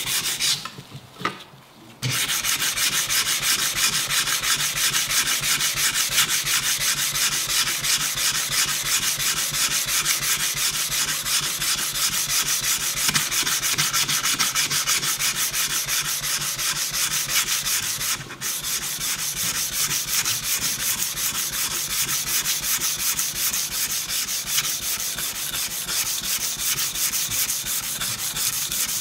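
Hand-sanding the flat of a Sugimoto Japanese kitchen knife's steel blade against a wooden cutting board, to strip the old patina. The strokes are rapid and back-and-forth, with a brief pause about a second in.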